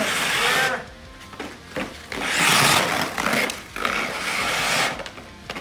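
Hockey skate blades scraping and carving the ice during pivots and cross-under pushes: a loud scrape at the start and another about two to three seconds in, with quieter strides between.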